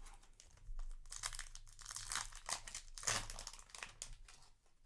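Foil booster pack wrapper crinkling in a run of bursts as it is handled and opened.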